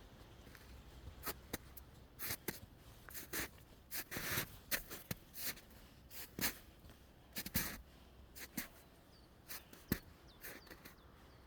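Irregular rustling and clicking scrapes, short crackles coming a few at a time with pauses between.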